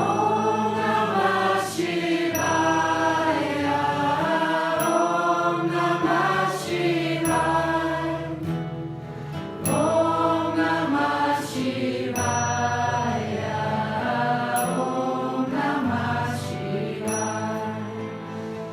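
Mantra chanting in kirtan style: a sung melodic chant over a steady, sustained drone.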